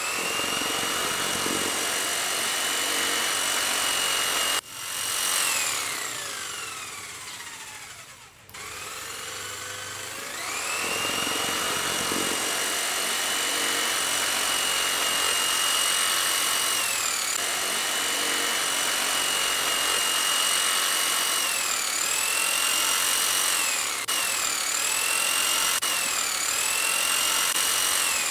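Small electric motor of a popsicle-stick toy airplane spinning its propeller: a steady high whine that climbs in pitch as it spins up, winds down about five seconds in, and spins up again around ten seconds. Near the end the pitch dips briefly several times.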